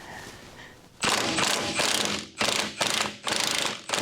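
A power tool, ratcheting and whirring, run in four short bursts starting about a second in, on fasteners of a BMW 535i's cooling system.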